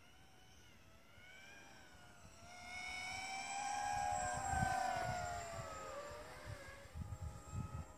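Storm 250 racing quadcopter's electric motors and propellers whining as it flies by. The whine swells over a couple of seconds, is loudest about four to five seconds in, and drops in pitch as it passes away. A few low bumps follow near the end.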